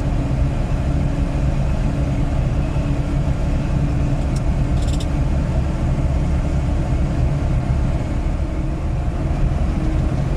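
Moskvich 412 driving at steady road speed, heard from inside the cabin: a continuous drone of engine, drivetrain and road noise with a steady low hum, and a few faint clicks about halfway through.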